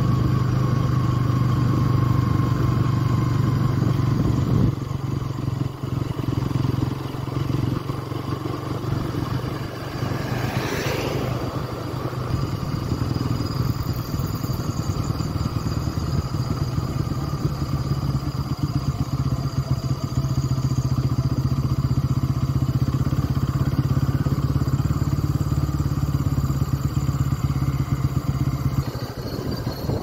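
Motorcycle engine running steadily while riding, easing off about five seconds in and pulling harder again in the second half, with a brief rising hiss near the middle.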